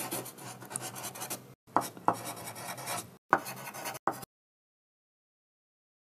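Pen scratching in quick handwriting strokes, in three runs of about a second and a half or less with short breaks between them and a brief last stroke, stopping about four seconds in.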